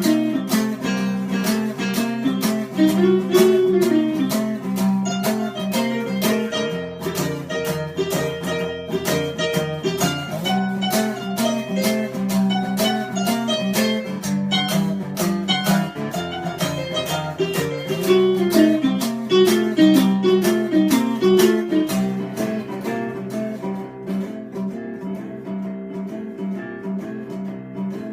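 Instrumental break of an acoustic song: guitar picked in a steady rhythm under a melody line with sliding notes. It thins out and gets quieter over the last few seconds.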